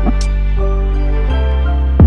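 Background music: sustained bass and synth notes with a drum hit about a quarter second in and another near the end.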